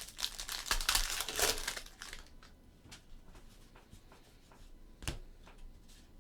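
A trading-card pack wrapper being torn open and crinkled for about two seconds, followed by a few light clicks as the cards are handled.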